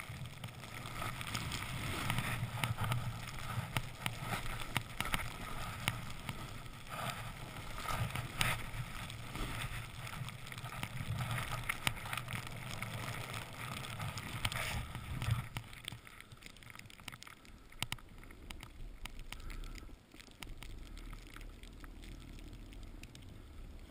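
Snowboard riding through fresh powder snow: a steady rushing hiss of snow and air over the board, broken by brief scrapes and knocks. It quietens about sixteen seconds in.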